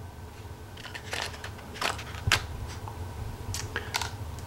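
Miniature 1/6 scale plastic hard case and its foam insert being handled: about half a dozen light plastic clicks and taps as the insert is set in and the lid is moved, the sharpest a little past two seconds in.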